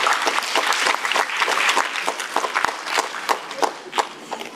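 Audience applauding in a cinema hall: dense clapping that thins out and fades near the end.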